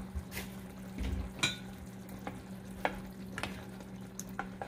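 A plastic spatula stirring coconut milk into a simmering curry in a nonstick pan: several soft scrapes and wet stirring sounds at irregular moments, over a steady low hum.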